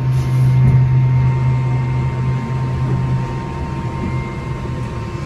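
Hotel lift car in motion: a steady low hum with a faint high whine over it, the hum easing off about three seconds in.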